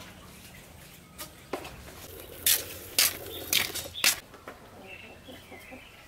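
Dry dead vine stems crackling and snapping as they are pulled out of a wire fan guard: a few sharp cracks about one to one and a half seconds in, then a cluster of louder ones between about two and a half and four seconds.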